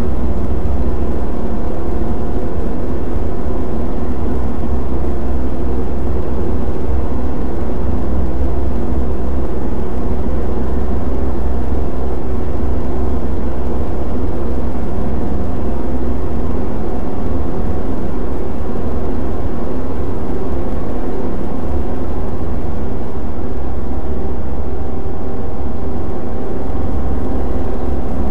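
Several front-loading washing machines running at once, their drums and motors layered into one loud, steady, low hum with a few steady tones above it.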